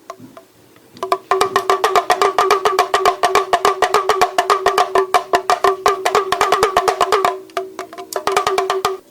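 Percussive music: a fast, even run of pitched wooden knocks, several a second, with a short break near the end before a few more.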